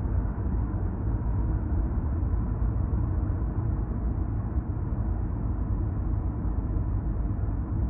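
Steady low rumble of tyre and road noise from a car cruising at expressway speed, heard from inside the cabin.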